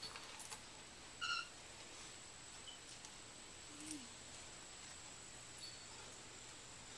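A dog gives one short, high-pitched squeak about a second in, over faint steady hiss; near the middle comes a faint low sound falling in pitch.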